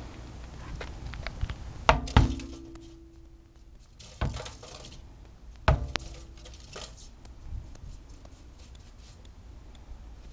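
Knocks against a stainless steel sink basin: a hard pair about two seconds in, then single knocks near four and six seconds, the first pair and the last knock each leaving a short metallic ring, over light rustling.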